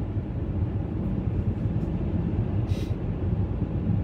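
Low, steady rumble of a car heard from inside the cabin: engine and road noise of the car being ridden in.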